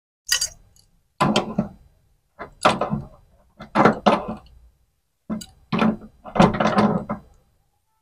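Metal hand tools clinking and clattering in about five short bursts, as an adjustable wrench is picked up from a pile of tools on concrete and set on the flare nut at an air conditioner's outdoor-unit service valve.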